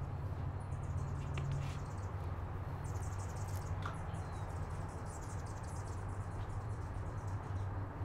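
High-pitched chirping in rapid, evenly pulsed trains over a steady low rumble. There is a light click about four seconds in, likely a wooden xiangqi piece set down on the board.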